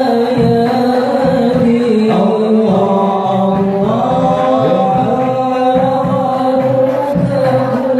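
Qasidah rebana: a group of male voices singing a devotional song together over a steady beat of rebana frame drums.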